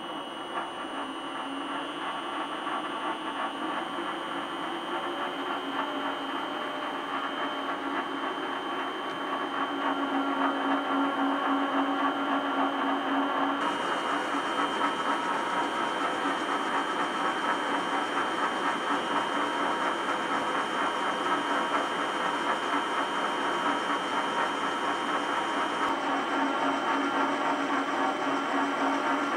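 PM-1127VFI-LB variable-speed metal lathe running, a steady mechanical whine with a high held tone. It grows louder over the first ten seconds as the spindle speed is turned up, then runs on evenly.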